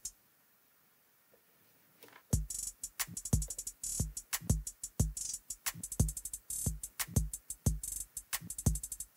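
Programmed drum pattern played back from Logic Pro X: a kick drum with closed hi-hats, including fast hi-hat rolls whose steps have been shifted in pitch. It starts about two seconds in, after a mouse click.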